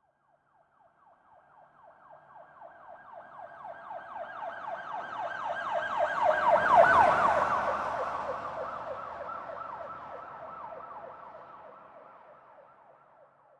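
Police car siren in rapid yelp, its pitch sweeping up several times a second, passing by: it grows from faint to loudest about halfway through, with a brief low vehicle rumble at the peak, then fades away with its pitch slightly lower.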